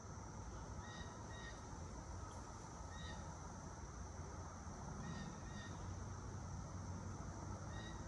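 Steady high drone of cicadas over a low rumble of light traffic, with a bird giving short calls, mostly in pairs, four times.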